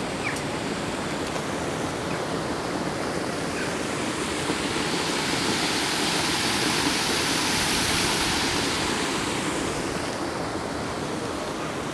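Water pouring over a small stone weir on a stream: a steady rushing that grows louder about halfway through and fades again near the end.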